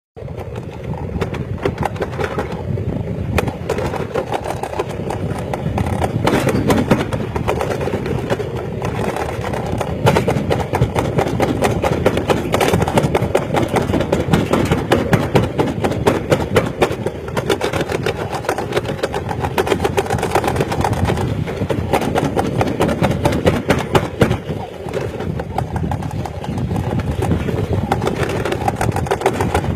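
Toboggan sled rattling and rumbling at speed down a stainless-steel trough slide, a steady dense clatter with no let-up.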